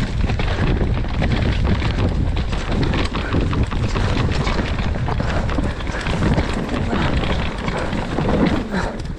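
Wind buffeting the microphone over the rattle and knocking of a downhill mountain bike riding over rough trail.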